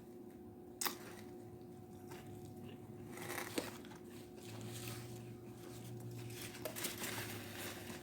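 Quiet close-up eating sounds: chewing food, with faint crinkling and a few small clicks, the sharpest about a second in.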